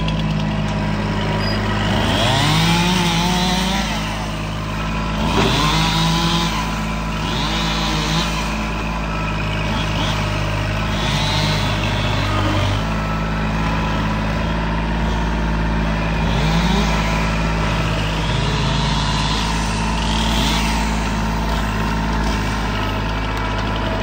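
Kubota tracked machine's diesel engine running under load, its pitch rising and falling several times as it works, with high squeaks recurring about every second and a half.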